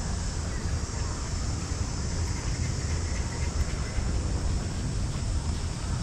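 Wind buffeting the microphone while riding a bicycle along a paved road: a steady, uneven low rumble with tyre noise, and a steady high hiss over it.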